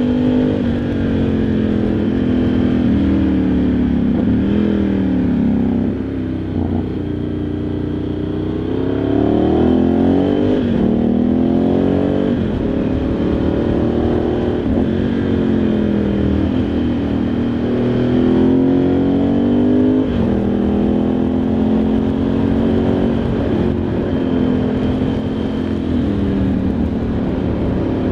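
Ducati Multistrada 1100S's air-cooled L-twin engine heard onboard while riding. Its pitch climbs and falls repeatedly as the throttle opens and closes through the gears.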